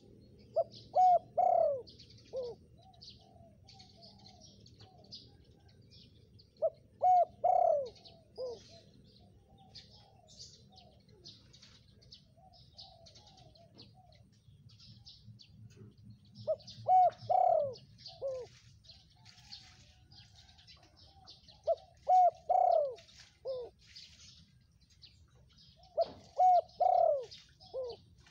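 Spotted dove singing its coo song: five phrases of three or four low, rolling coos, each about two seconds long, with a longer pause in the middle. Faint high chirps of small birds in the background.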